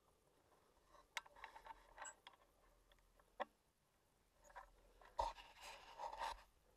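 Faint handling noise from a gun-mounted camera as the gun is moved: rustling with a few sharp clicks, about a second in, midway, and a louder knock near the end.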